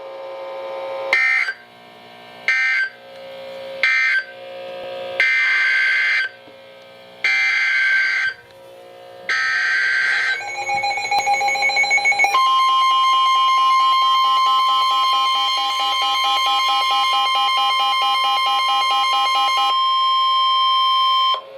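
NOAA Weather Radio's SAME digital data bursts, a string of short warbling bursts with gaps, followed by the steady warning alarm tone of about 1 kHz (the 1050 Hz Warning Alarm Tone) held for about nine seconds and cutting off sharply. Together they are the coded alert header and attention signal that start a new weather warning broadcast.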